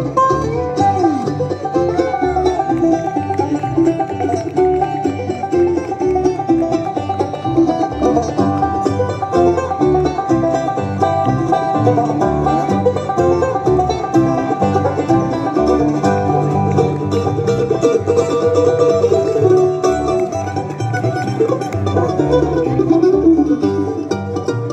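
Bluegrass band playing live through outdoor PA speakers, banjo picking to the fore over upright bass and guitar.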